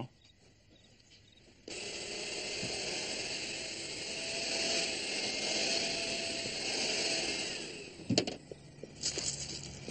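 A steady hiss that starts suddenly about a second and a half in and runs for about six seconds before fading, followed by a sharp click and more noise near the end.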